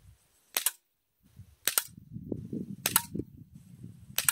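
FNX-45 gas-blowback airsoft pistol firing four shots, about one a second. Each is a sharp double crack, the shot with the slide cycling.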